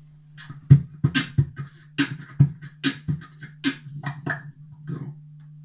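Beatboxing into a handheld microphone: a rhythmic pattern of deep kick-drum thumps and hissing snare-like snaps, starting about half a second in and stopping about five seconds in. A steady low hum runs underneath.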